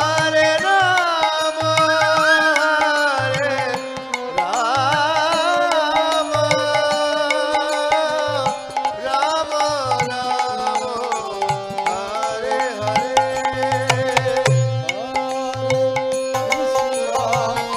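Devotional kirtan music: a harmonium holding steady notes under a wavering, ornamented melody line, with a hand drum beating out low strokes at an even pace.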